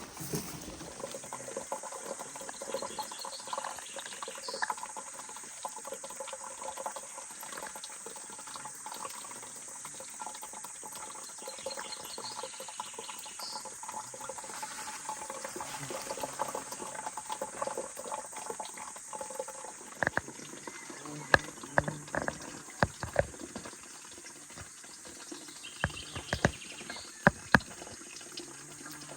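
Running water trickling steadily, then a series of sharp knocks and clicks from handling hard objects during the last several seconds.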